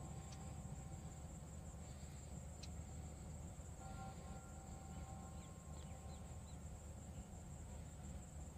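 Rural waterside ambience: insects, such as crickets, making a steady high-pitched buzz over a low rumble, with a few short bird chirps about five to six seconds in.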